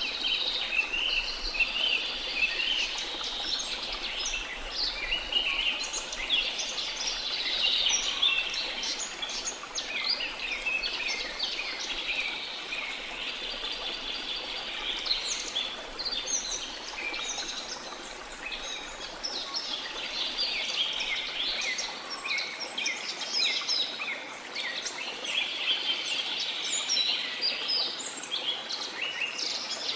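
Many birds chirping and singing at once in a tropical rainforest, a dense, continuous chorus of quick trills and calls over the steady rush of a waterfall.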